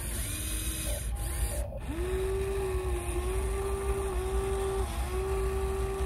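Small electric motors of a Huina radio-controlled excavator whining as the boom and arm lower the bucket to the sand. A steady whine starts about two seconds in, dips slightly in pitch a few times, and stops near the end.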